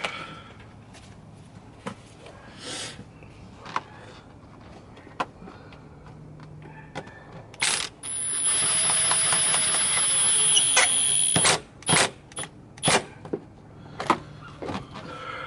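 Metal hand tools clicking and clinking during repair work, then, about halfway through, a loud steady hiss with a high whine that runs for about three and a half seconds and cuts off sharply. A few more sharp knocks of tools follow.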